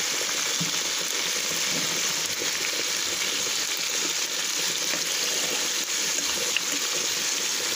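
Meat sizzling steadily in oil and caramelised sugar in a caldero, a constant frying hiss.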